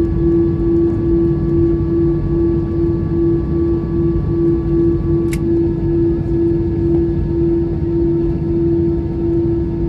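Airliner cabin noise while the jet taxis after landing: a steady rumble from the idling engines with a constant hum running through it. A short click sounds about five seconds in, and a faint higher tone stops at the same moment.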